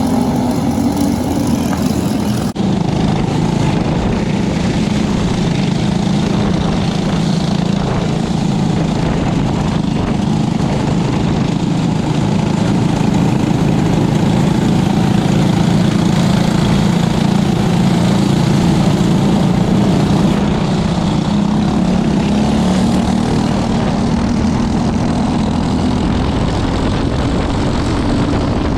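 Briggs & Stratton 206 single-cylinder four-stroke racing kart engines running on track, a steady engine drone that swells and eases slightly. About two and a half seconds in, the recording cuts abruptly to another stretch of the same engine noise.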